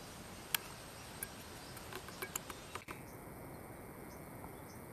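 Faint swamp ambience: a steady hiss with a few sharp small clicks in the first three seconds, the loudest about half a second in. After an abrupt change in the background about three seconds in, faint short high chirps of insects.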